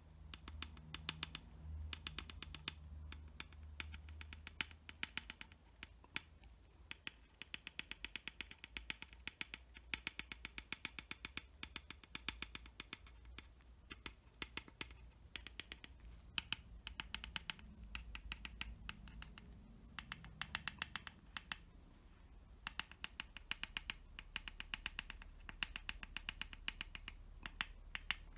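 Faint pencil tip dabbing and scratching on the painted plastic of a scale model aircraft, quick runs of small sharp ticks with short pauses, laying on tiny graphite scuffs and chips.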